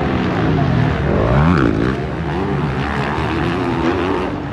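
Motocross dirt bike engines racing, revving up and down, with their pitch falling and rising as the throttle is worked, sharply about a second and a half in.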